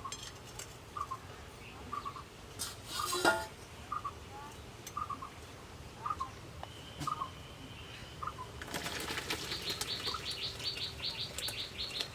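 Birds calling: one repeats a short chirp every half second to a second. There is a brief clatter about three seconds in, and from about nine seconds a fast, high pulsing trill of about six beats a second joins.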